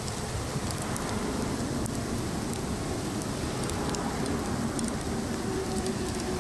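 Steady rain-like hiss of roadside noise by a wet, snow-covered highway, with a faint hum running through it.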